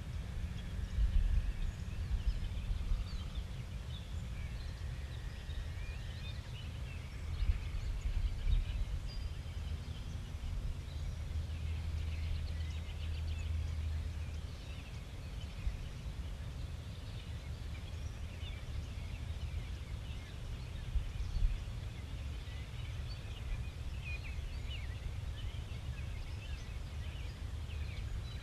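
Outdoor ambience: many small birds chirping over a steady low rumble.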